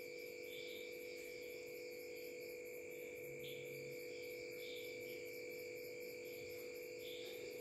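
Faint steady background hum made of several held tones, with a fast, even high-pitched pulsing of about three or four beats a second. The hand-sealing of the dough makes no distinct sound.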